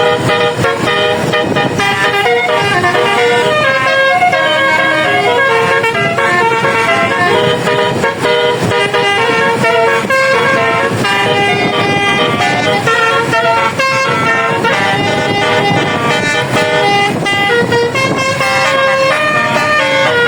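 A bus's 24-note basuri (telolet) air horn playing a tune: a quick, unbroken run of loud horn notes stepping up and down in pitch.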